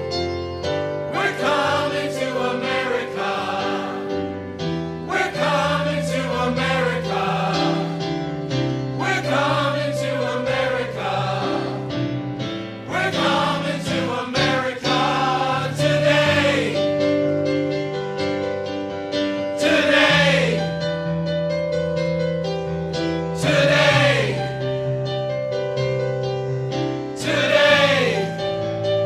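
A stage-musical cast singing together in chorus over held chords, with piano accompaniment. Sung notes sweep downward every few seconds near the end.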